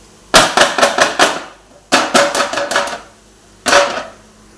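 Metal baking tin full of cake batter knocked down repeatedly on the tray beneath it: two quick runs of about half a dozen sharp knocks each, then one more knock. This settles the batter and knocks out its air bubbles before baking.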